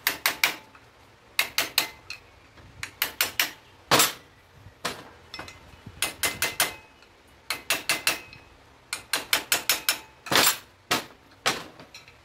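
Hammer tapping metal-on-metal on a steering-head lower bearing race to knock it off the steering stem. The strikes come in quick runs of three to six, with short pauses between runs.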